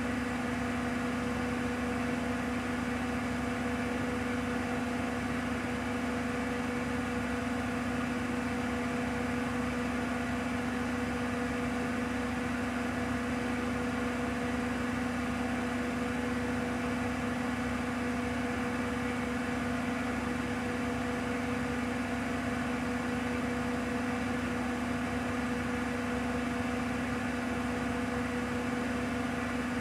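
Bosch WAQ28470GB washing machine spinning its empty drum at a steady 1400 rpm: a constant motor hum and whine that holds one pitch, over the rush of the spinning drum.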